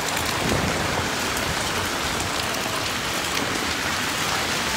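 Steady rain falling on a wet paved street and drumming on an umbrella overhead, an even hiss with no pauses.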